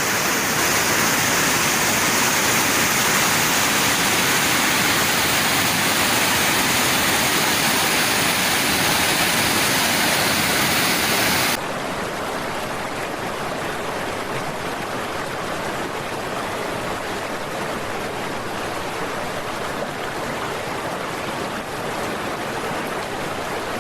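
Steady rush of moving water. About halfway through it cuts abruptly to a slightly quieter, duller recording of the same kind of rushing sound.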